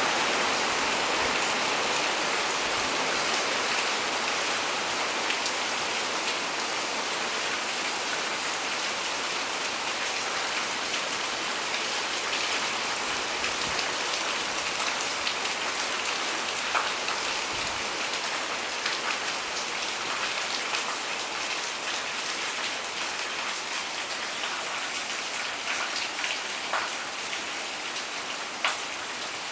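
Steady rain falling, a dense hiss with separate drops ticking now and then, more of them near the end. The rain gradually gets quieter.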